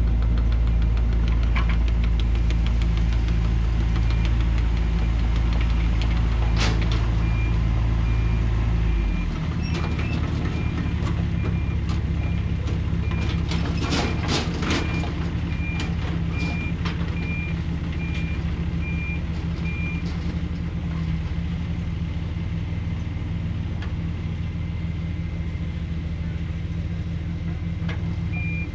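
An engine runs steadily, its note changing and dropping about nine seconds in. A high electronic beep repeats at a regular pace over much of the stretch, and a burst of clattering comes near the middle.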